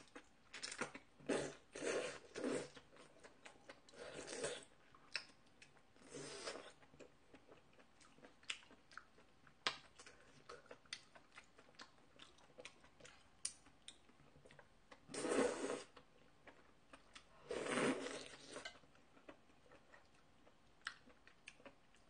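Close-up eating sounds: a person chewing octopus dishes, with many small wet clicks and several louder bursts lasting up to a second, the loudest about fifteen and eighteen seconds in.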